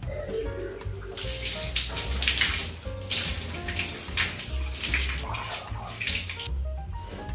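Running water, a hiss that starts about a second in and stops near the end, over background music with a steady low bass.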